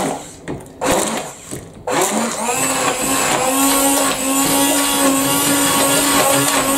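Handheld stick blender puréeing steamed pumpkin chunks in a bowl. It runs in short bursts at first, then runs steadily from about two seconds in.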